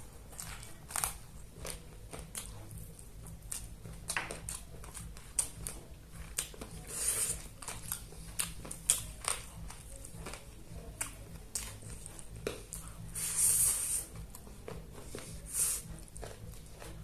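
Close-miked mukbang eating: a person chewing and biting, with many sharp wet clicks and smacks of the mouth. Two longer hissy sounds come about seven and thirteen seconds in.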